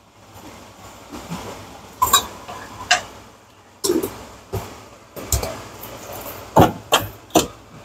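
Kitchen handling sounds: a string of sharp clicks and knocks from seasoning containers and a spoon being picked up, opened and set down on the counter while the stir-fry is seasoned. The clicks come at irregular intervals, beginning about two seconds in.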